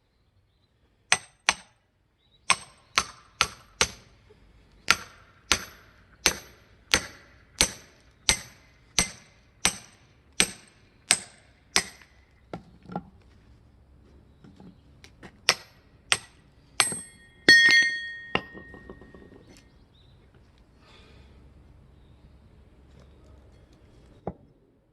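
Sharp, ringing strikes of a tool driving through firewood to split it. About seventeen blows come in a steady run, roughly one every half second. After a pause, four more follow; the last is the loudest, with a ringing tone and a short clatter after it.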